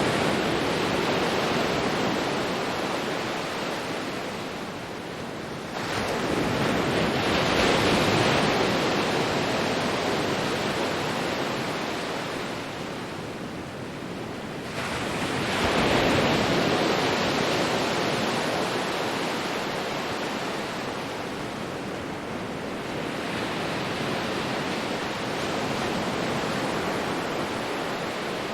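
Ocean waves breaking and washing up the shore, a steady hiss of surf that swells and ebbs. Three waves surge in, the last one weaker than the other two.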